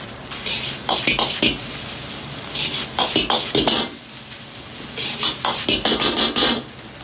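Metal ladle scraping and clattering against a wok as fried rice is stir-fried and tossed over a high gas flame, with the rice sizzling. The stirring comes in three bursts of a little over a second each.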